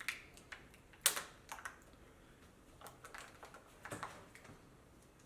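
Scattered small clicks and crackles of adhesive tape being worked and peeled off a laptop's screen panel and plastic housing, the sharpest click a little over a second in.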